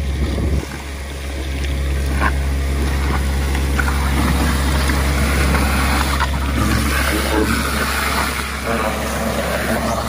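Hydro-excavation vacuum truck running: a steady engine and blower drone under the rushing hiss of the high-pressure water jet and suction hose. The rush grows louder from about four seconds in.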